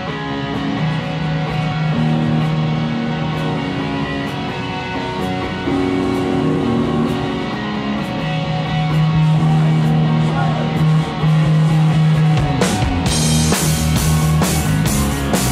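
Live rock band: electric guitar and bass play a slow intro of long held notes, then the drum kit kicks in and the full band comes in louder about twelve and a half seconds in.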